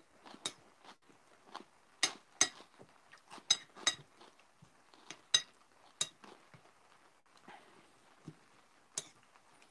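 Cutlery clicking and clinking on a plate: irregular sharp taps, a few with a brief ring.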